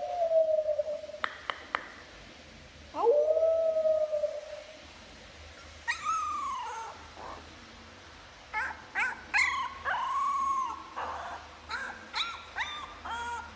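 A young puppy howling: three long, drawn-out howls in the first half, then a run of shorter rising whimpers and yips.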